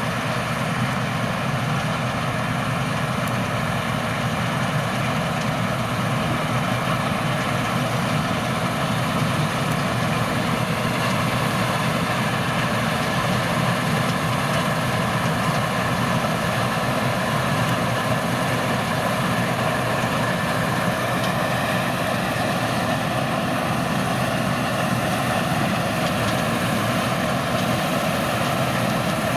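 Claas Lexion 540 C combine harvester running steadily while harvesting: an even, unbroken machine drone with several steady tones over it.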